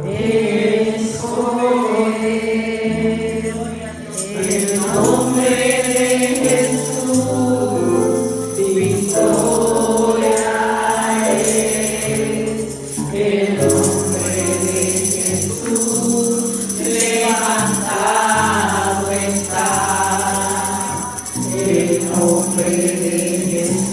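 Worship music: a group of voices singing a gospel hymn over sustained bass notes, with a tambourine jingling from about four seconds in.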